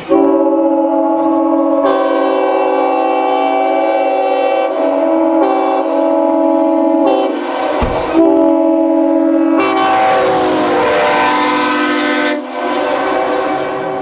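General Electric five-tone air horn sounding one long chord of several notes, its notes dropping out and coming back in several times, with a brief break about eight seconds in. Over the middle stretch a hiss of rushing air rides on top of the chord.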